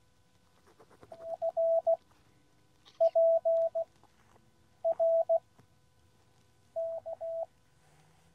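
Morse code (CW) from a QCX Mini transceiver: a single steady mid-pitched tone keyed into dots and dashes in four short groups, a station sending its call sign.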